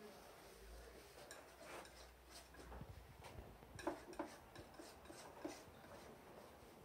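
Near silence with faint scattered clicks and light taps, a quick cluster of them a little past the middle.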